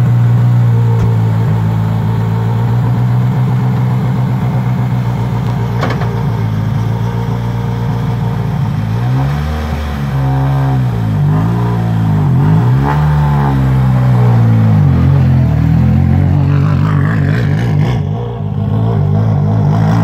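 Skoda Fabia R5 rally car's turbocharged 1.6-litre four-cylinder engine idling steadily, then blipped up and down several times in quick succession about halfway through, and pulling away under throttle near the end.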